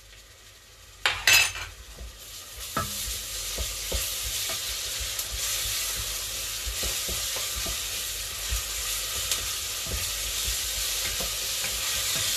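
Chopped onion and ground garlic sizzling in oil in a stainless steel pot while a wooden spoon stirs them, with small knocks of the spoon against the pot. A short loud clatter comes about a second in, and the sizzle then builds and holds steady.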